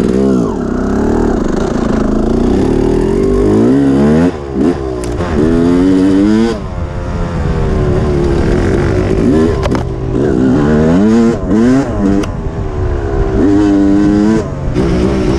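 Yamaha YZ250 two-stroke dirt bike engine under hard riding, revving up and falling back over and over as the throttle is opened and shut, with several brief drops where the throttle is chopped.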